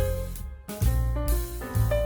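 Background music: piano notes over a steady bass line.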